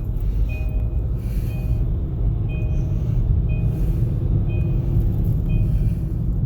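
Car's seatbelt warning chime beeping about once a second because the driver's belt is unbuckled, over the low rumble of the car driving.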